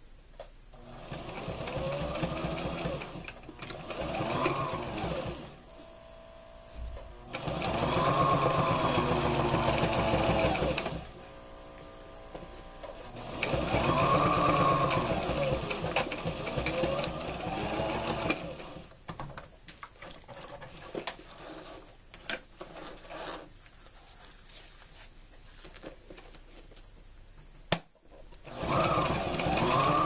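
Electric sewing machine stitching in several runs of a few seconds, the motor's pitch climbing and dropping as it speeds up and slows down. Light clicks and taps fall in the pauses between runs.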